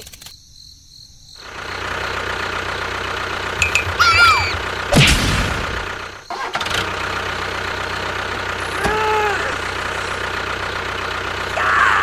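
Tractor engine running steadily, starting about a second and a half in, with a loud bump about five seconds in and short pitched calls around four and nine seconds in.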